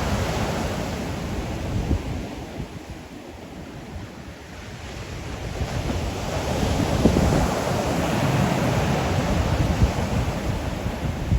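Ocean waves breaking and washing up a beach. One surge fades in the first couple of seconds, and the next builds from about the middle to a loud wash before easing near the end.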